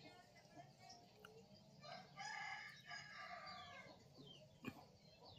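A rooster crowing once, faintly, about two seconds in, with a few small bird chirps and one sharp tick near the end.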